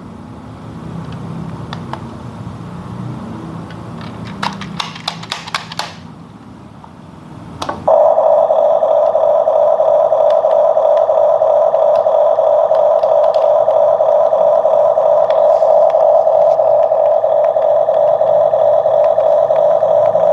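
Several quick clicks from the toy's remote-control handset being worked. Then, about eight seconds in, a Huina remote-control excavator powers up and its built-in engine sound effect starts suddenly: a loud, steady drone from a small speaker.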